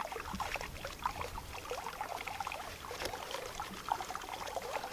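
Hands threading and tying a strap through an eye bolt: soft, irregular rustling and small scraping ticks, with one sharper tick about three seconds in.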